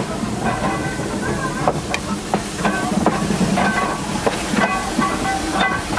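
Small 0-4-0T saddle-tank steam locomotive rolling slowly past at close range, hissing steam, with scattered short knocks and clanks.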